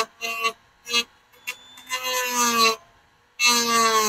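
Dremel rotary tool cutting plastic grille mounting tabs in several short bursts: a steady whine with a rasping edge, the longest burst near the end. The pitch sags a little as the bit bites into the plastic.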